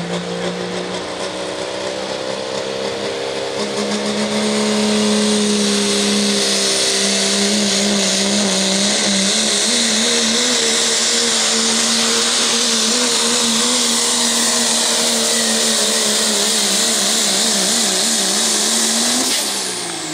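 Pro stock diesel pickup's turbocharged diesel engine at full throttle pulling a weight-transfer sled. Its note climbs over the first few seconds, then holds at high revs with a wavering pitch over a loud hiss, and drops away sharply near the end.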